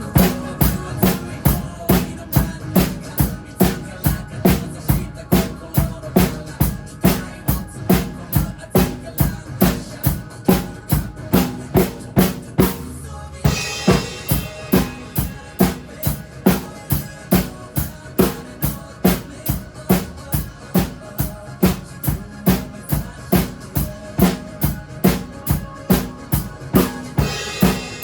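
Drum kit played over a pop backing track: a steady bass drum and snare beat, with a brief break about thirteen seconds in followed by a cymbal crash, and another crash near the end.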